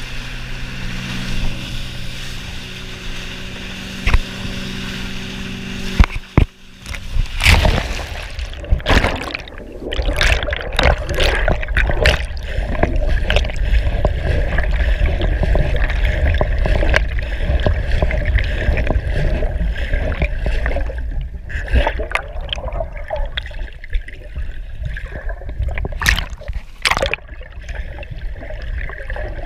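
Wake boat engine running steadily and the wake rushing and spraying beside a wakesurf board. About six seconds in comes a sudden loud splash, then muffled underwater churning and gurgling with scattered bubbly clicks.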